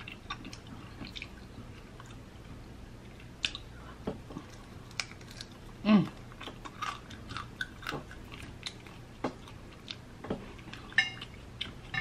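Close-up chewing and biting of crispy Flamin' Hot Cheetos–crusted fried chicken wing: scattered crunches, wet mouth clicks and smacks, with one louder mouth sound about halfway through.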